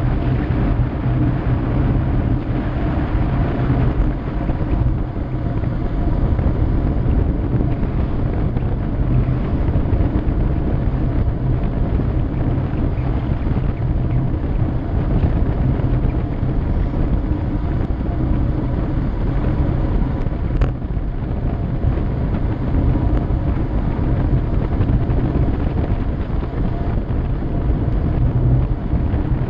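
Steady, loud wind rushing over the microphone of a camera on a road bike descending at speed, a low rumbling buffet. There is a single brief click about two-thirds of the way through.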